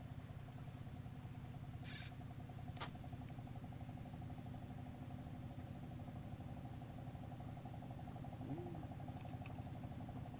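A steady high insect trill over the low, even drone of a small running engine, with a short rustle about two seconds in and a sharp click a moment later.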